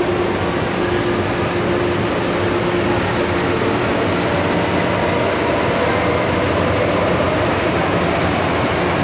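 Hong Kong MTR M-train (Metro-Cammell electric multiple unit) running through a tunnel, heard inside the passenger car. It makes a steady, loud rumble of wheels on rail and running gear. A faint steady tone fades out about three and a half seconds in.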